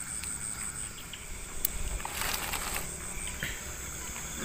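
Crickets chirping in a steady, high, evenly pulsing trill, with a brief rustle about two seconds in.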